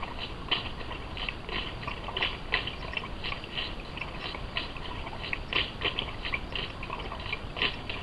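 Irregular wet clicks and smacks, several a second, from a North American river otter working with its muzzle at the water's edge.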